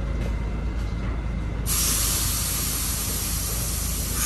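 Subway train standing at the platform with a steady low rumble; less than two seconds in, a loud hiss of air from the train's air brakes starts suddenly and keeps going.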